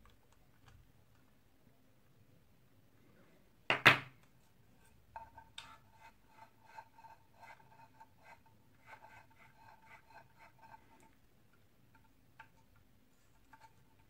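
Hand work on a vacuum cleaner motor: one sharp knock about four seconds in, then several seconds of quick, light metallic clicks with a faint ringing tone as the motor's metal parts are handled and worked.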